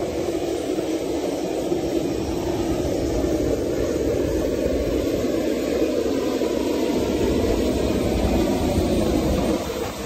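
Steady jet-aircraft roar on the ramp, dropping away just before the end.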